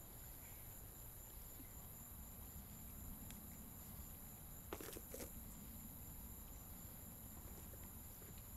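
Steady high-pitched trilling of a night insect chorus, crickets, over a faint low rumble, with a few brief clicks about five seconds in.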